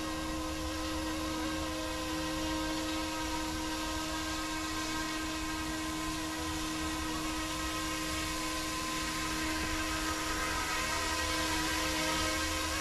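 A small electric RC scale helicopter, the F09-S UH-60 Blackhawk, hovering: a steady high motor whine over the whir of its rotors, getting slightly louder near the end.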